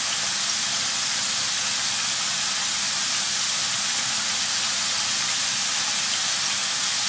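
Sliced potatoes deep-frying in a large pan of hot oil: a steady, even sizzling hiss.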